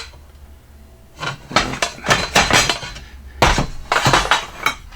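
Metal CNC kit parts, screws and plates, clinking and clattering as they are handled, a quick string of sharp knocks starting about a second in, the loudest knock near the middle.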